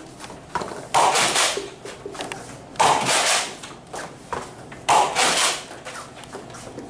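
Nerf Rival Artemis blaster firing foam balls: three sharp shots about two seconds apart, each fading over about half a second.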